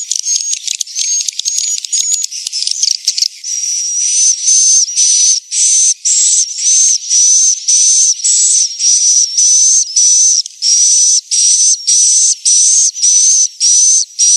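Recorded swiftlet calls of the kind played to call swiftlets into a nesting house: a dense, high twittering chatter for the first three seconds or so, then a regular string of high buzzy chirps, a little under two a second.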